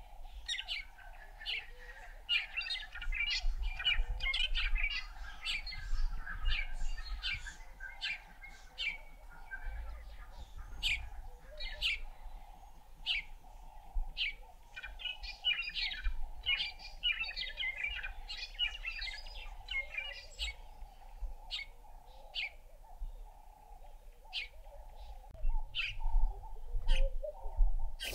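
Small birds chirping and calling in many short, quick notes, thickest in a few busy stretches, over a steady low hum.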